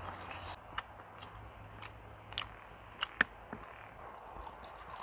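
Faint scattered clicks and taps of a plastic soju bottle and cup being handled, then soju starting to trickle from the bottle into the cup near the end.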